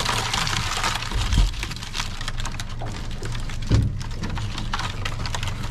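Dense patter and clicking of wet blue swimmer crabs scrabbling about in a plastic crate, just shaken out of a crab pot and still dripping. A steady low hum runs underneath.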